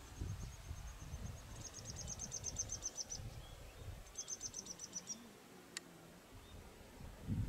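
Riverside outdoor ambience: an uneven low rumble underneath, with a rapid high-pitched trill of chirps, about ten a second, heard in two runs of a second or so each. One sharp click near the end.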